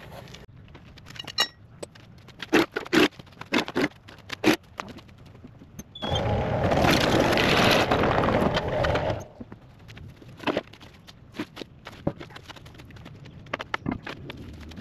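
Scattered sharp metal clanks and knocks of parts being handled at a skid steer's undercarriage, with a loud rushing noise lasting about three seconds near the middle.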